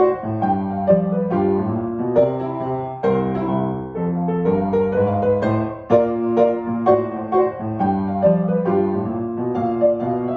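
Solo piano playing a gentle melody over a lower accompaniment, notes struck at an even, unhurried pace.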